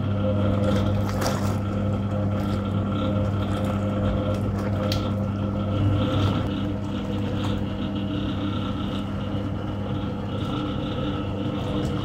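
Hoover 0307 washing machine running: its electric motor gives a steady hum while the pulsator churns the soapy water in the tub.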